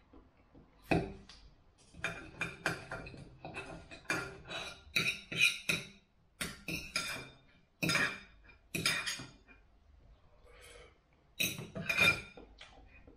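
Knife and fork clinking and scraping against a dinner plate while cutting up a meal. A quick run of sharp, ringing clinks, a short lull, then a few more loud clinks near the end.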